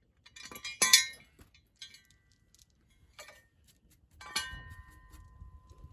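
Metal tools and bolts clinking against metal: two sharp knocks, the second ringing on with a steady tone, and light ticks between them.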